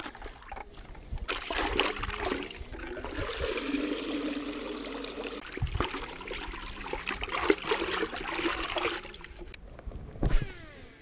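Water sloshing and splashing in a plastic bucket as hands reach around in it, a steady crackling swish that stops about a second before a short knock near the end.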